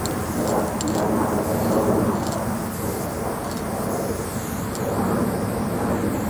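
Steady low rumble of outdoor background noise, like street traffic, running throughout.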